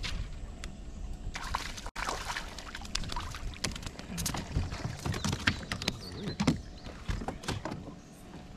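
Water sloshing against a kayak hull, with irregular knocks and clicks from handling gear on board.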